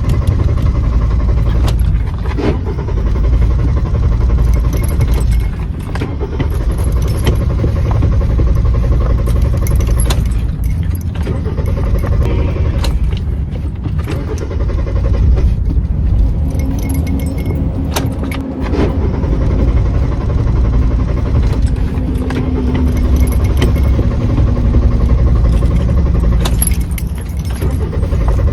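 Car's starter motor cranking the engine over and over without it catching: a car that won't start. The cranking is loud and continuous, with a few brief dips.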